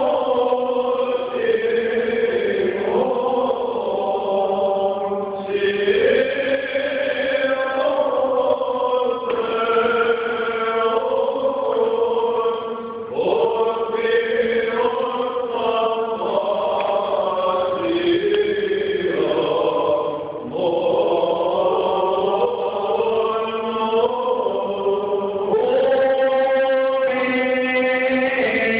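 Greek Orthodox liturgical chant sung by several voices: a slow, continuous melody moving from note to note over a steady low note held beneath it.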